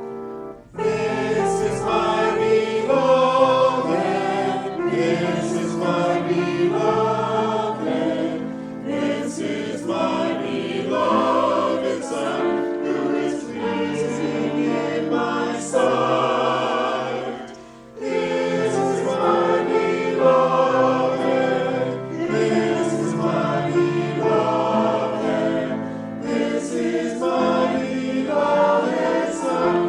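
A choir singing a hymn with accompaniment, in phrases, with a short pause about two thirds of the way through.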